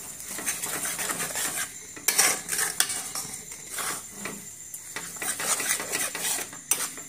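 Metal spatula scraping and knocking against a steel kadai as scrambled egg is stirred, in repeated, irregular strokes.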